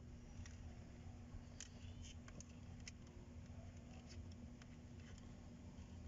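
Near silence with faint, scattered small clicks of needle-nose pliers and fingers working at a plastic dashboard heater-control unit, over a faint steady low hum.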